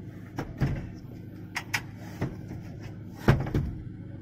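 Plastic fuse-box cover under a truck dashboard being unclipped and pulled away: a string of clicks and knocks of plastic clips and panel, the loudest a little past three seconds in. Under it runs the steady hum of the Nissan Diesel truck's engine at idle.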